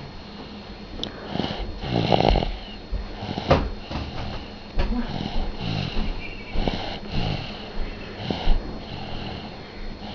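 Baby girl snoring in her sleep, a rough, wheezy snore with each breath, coming every second or two.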